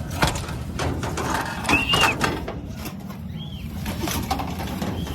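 Two short whistled notes, each rising and falling in pitch, about a second and a half apart, over a steady low rumble.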